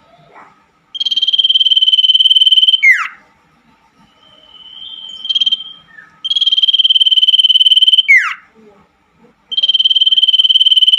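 Common iora (cipoh) calling: three times, a long buzzy trilled note of about two seconds ends in a quick falling whistle. A softer single note comes in between.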